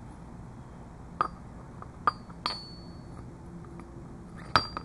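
Four light metallic clinks spread over a few seconds, two of them near the middle leaving a short high ring. They come from a Stirling engine's steel displacer and cylinder parts knocking together as they are handled and fitted.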